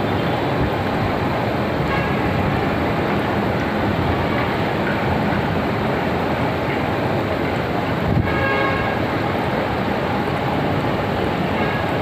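Jacuzzi pump running with water circulating: a loud, steady rushing noise, with a brief click about eight seconds in.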